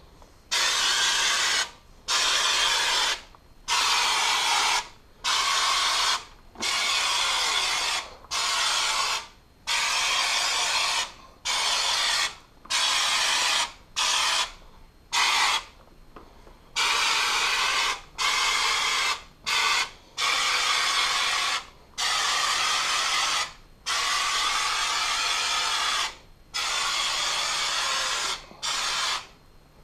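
Aerosol can of Homax spray-on wall texture spraying onto drywall in about twenty short hissing bursts, each separated by a brief pause.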